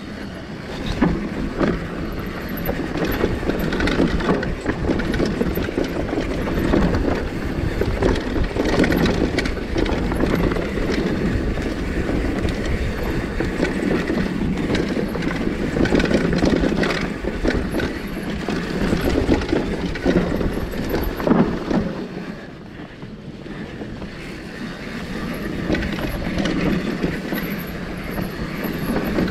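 Downhill mountain bike riding fast on a dirt trail: wind buffeting the mounted camera's microphone, tyres rolling over dirt, and constant clattering rattles from the bike's chain and frame over bumps. The noise eases briefly about two-thirds of the way through, then builds again.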